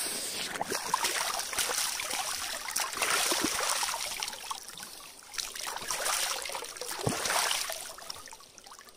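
Water in a shallow stream splashing and sloshing irregularly, as from someone moving about in it, dying down about eight seconds in.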